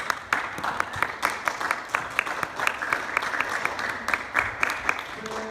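Applause: a room full of people clapping quickly and steadily, dying away at the end.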